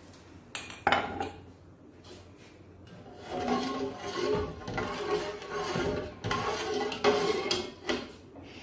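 A long metal slotted spoon clinking against an aluminium cooking pot, twice sharply about a second in, then scraping round the inside of the pot for several seconds as the milk and water in it are stirred.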